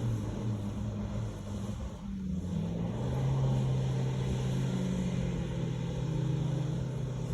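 A vehicle's engine running hard during doughnuts on a wet paddock, easing off about two seconds in, then picking up again and holding steady revs.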